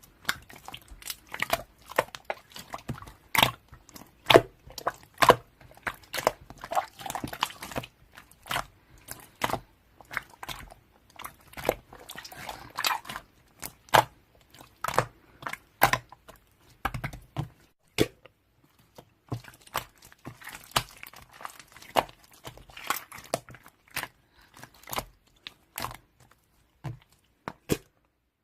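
Irregular crunching and clicking noises, several a second, with a short lull about two-thirds of the way through.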